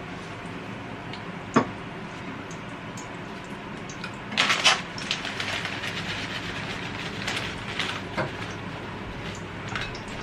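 Breaded pork cutlet frying in hot oil in a pan: a steady sizzle with scattered crackles. There is a sharp click about one and a half seconds in and a loud burst of crackling about four and a half seconds in.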